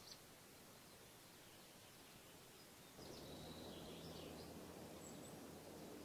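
Faint outdoor ambience: a steady low background hiss that grows louder about halfway through, with a few faint high bird chirps just after the change.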